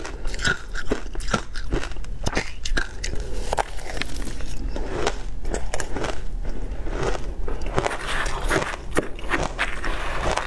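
Ice topped with matcha milk powder and passion fruit being bitten and chewed, a dense run of irregular crunches and crackles from mouthfuls of ice.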